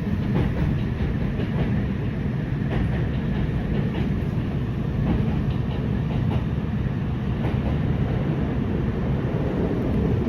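Kintetsu 8A series electric train running at speed, heard from inside the passenger car: a steady low rumble of wheels on the rails with light clickety-clack from the track.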